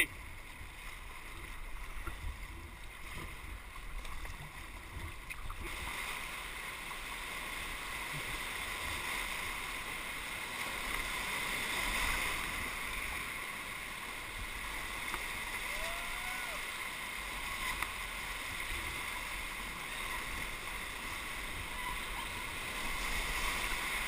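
Rushing whitewater of river rapids around an inflatable kayak, a steady hiss that swells about six seconds in as the boat runs into the rapids.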